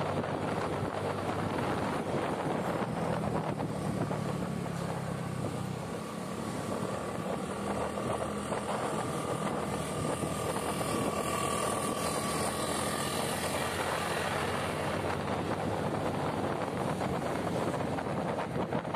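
Steady engine and road noise of a motor vehicle travelling along a town road, with a faint high whine through the middle of the stretch.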